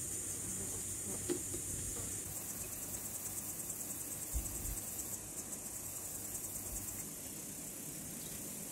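Insects chirring steadily at a high pitch, with a faster pulsing chirp joining in for a few seconds in the middle. A light click comes about a second in, and a soft low thump about halfway through.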